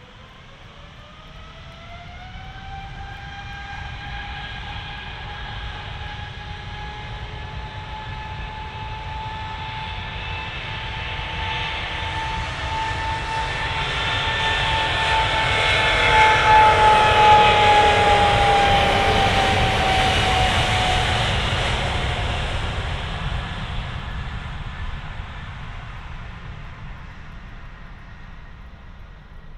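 Jet airliner engines spooling up, a whine rising in pitch over the first few seconds, then whine and low rumble building to their loudest a little past halfway as the aircraft rolls past on its takeoff run, and fading away.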